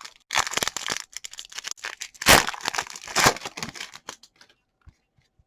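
A trading-card pack wrapper being torn open and crinkled by hand, with crackling rustles that peak twice in the middle before dying away.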